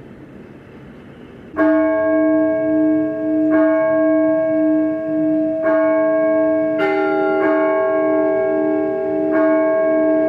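Orthodox church bells rung by hand in a bell tower. After a second and a half of background noise, the first stroke comes, then about six strokes on bells of different pitch in an irregular pattern, each ringing on and overlapping the others, the lowest note wavering as it sustains.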